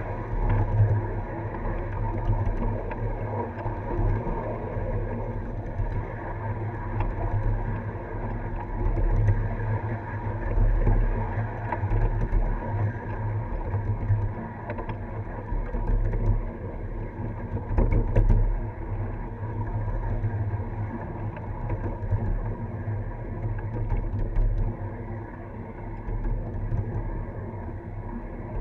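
Steady low rumble of a 7½-inch-gauge ride-on miniature railway caboose rolling along the track, swelling and easing, with occasional sharp clicks from the wheels and rails.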